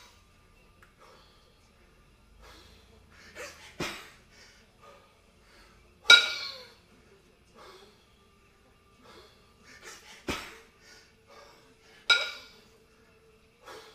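Pair of 22 kg competition kettlebells in a continuous jerk set: a sharp metallic clink with a brief ring as the bells knock together, about six seconds in and again near the end, with duller knocks in between, about one rep every six seconds. The lifter's breathing is heard between reps.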